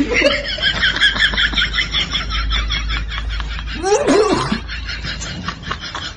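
Rapid, high-pitched giggling laughter, repeated quick bursts throughout, with a short sliding vocal sound about four seconds in.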